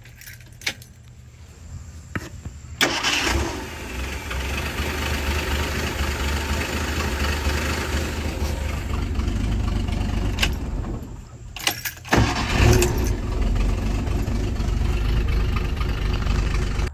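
A Ford 300 straight-six engine starts about three seconds in and runs steadily. It falls away around eleven seconds, catches again about a second later, then cuts off suddenly.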